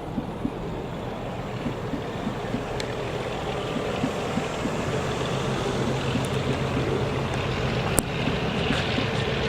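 A train running into the station: a steady rumble with a low hum that grows gradually louder, with a few sharp clicks, the loudest near the end.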